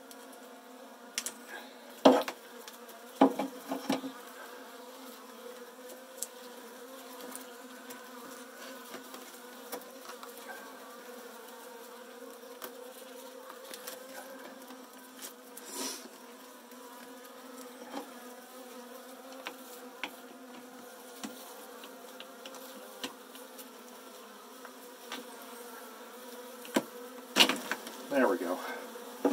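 A package of Saskatraz honeybees buzzing in a steady, even hum. A few sharp clicks and knocks come from the plastic bee package being handled, near the start and again near the end.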